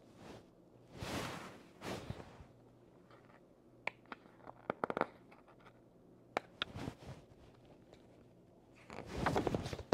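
Paper rustling and handling of a large picture book as its pages are shown and turned: a few soft swishes, with scattered small clicks and knocks.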